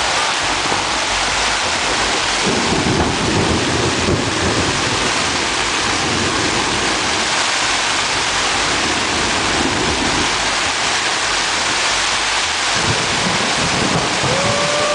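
Heavy rain drumming steadily on a tent's fabric, heard from inside the tent. There are deeper rumbling surges a few seconds in and again near the end.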